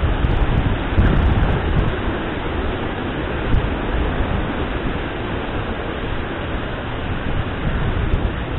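Steady rushing of the tall, strong Curug Cikaso waterfall at close range, mixed with falling rain and spray.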